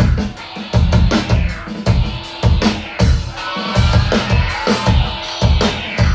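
Loud live band music driven by a heavy drum beat, the kick hitting about twice a second.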